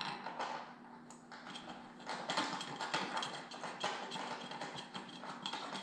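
Rapid small clicks and taps of hard parts as a kitchen sink's drain fitting is worked into place by hand.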